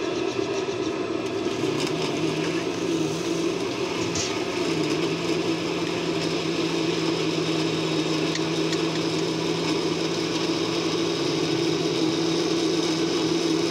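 A steady machine hum holds one low tone throughout, with the hiss of pakoras deep-frying in a kadai of hot oil.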